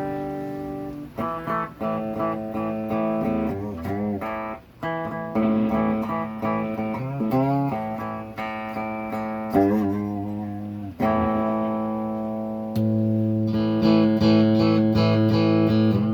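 Squier Custom Telecaster electric guitar played through amplifiers: ringing chords and single notes with a few string bends, loudest in a held passage near the end.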